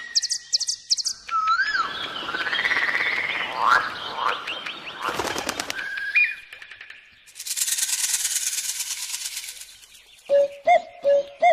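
A soundscape of assorted bird calls, whistles and chirps, with a long rapid pulsing trill in the second half. Near the end, a frog croaks several times.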